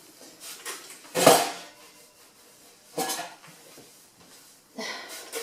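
Kitchenware knocking and clattering as things are lifted out of a cupboard and set down: a sharp knock about a second in (the loudest), another at about three seconds, and a short clatter near the end.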